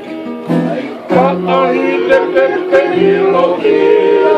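Several men singing together to strummed acoustic guitars, the voices and strumming coming in loudly about a second in after a short lull.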